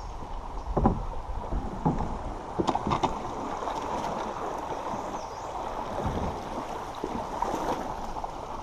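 Creek water rushing past a canoe through a shallow riffle, with a few sharp knocks against the canoe in the first three seconds.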